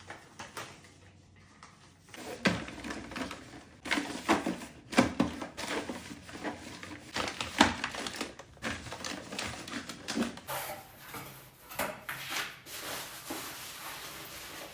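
Close-up handling noises: irregular taps and clicks with some rustling, starting about two seconds in, with more rustling in the last few seconds.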